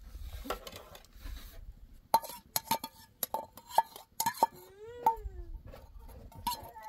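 Metal ladle and skimmer clinking against a metal cooking pot of greens: a run of sharp, ringing clinks in quick succession. A short rising-and-falling cry comes about five seconds in.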